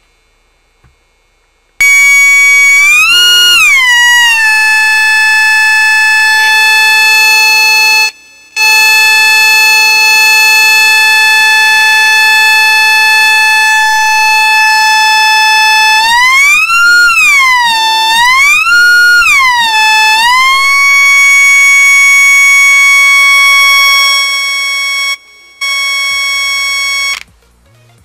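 Test tone from an audio signal injector, amplified by a breadboard LM386 amplifier and played through a small loudspeaker. It is a loud electronic tone that holds steady, glides up and down in pitch a few times, and drops out briefly twice before stopping.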